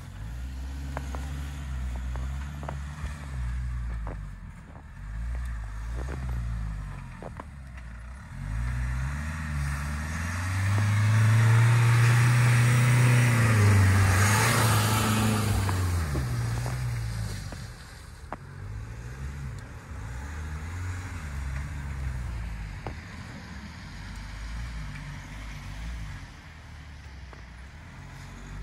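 Nissan X-Trail T32 SUV driving over snow: the engine revs up as the car comes close, loudest about halfway through with a hiss of tyres through the snow, then falls away as it pulls off.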